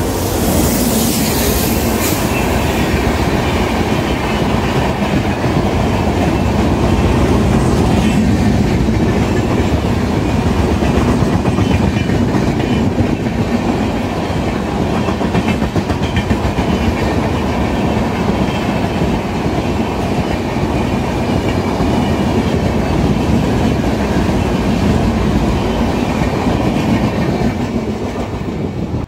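A train passing at speed at close range, its wheels clattering steadily over the rail joints for nearly half a minute, with a brief high-pitched screech in the first couple of seconds. The sound cuts off abruptly at the end.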